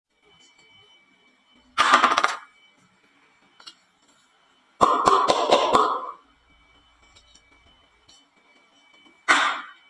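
Marbles clattering down a HABA wooden marble-run slope in three short bursts, about two, five and nine seconds in. The middle burst is the longest, a run of quick sharp clicks.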